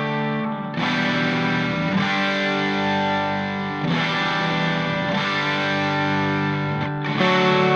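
Background music: electric guitar with distortion and effects playing sustained chords that change every few seconds.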